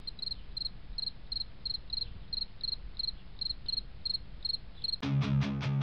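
Cricket chirping steadily, about three short high chirps a second, over a faint low hum. About five seconds in, loud music cuts in suddenly.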